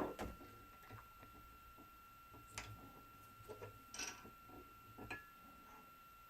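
Faint, scattered clicks and taps of small tools and parts being handled at a soldering bench, about six over several seconds, over a steady faint high-pitched whine.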